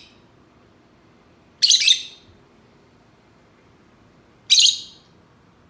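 A bird calling twice, about three seconds apart: each call a short, loud, harsh cry.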